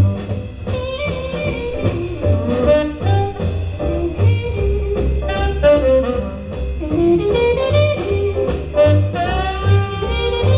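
Jazz with a saxophone lead over double bass, played from a vinyl record through Metis loudspeakers on a TriangleArt ANUBIS turntable and tube amplifier system.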